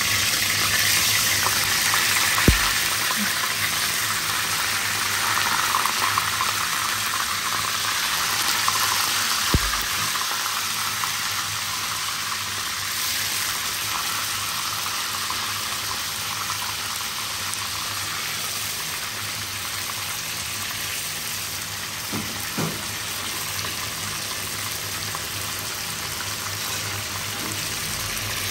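Chicken pieces rubbed with turmeric sizzling in hot oil in a frying pan, a steady hiss that gradually gets a little quieter. Two light knocks come in the first ten seconds.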